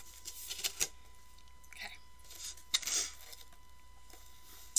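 Cardboard shipping box and its contents being handled: scattered rustles and a few light knocks and clicks as boxed figures are moved about, over a faint steady tone.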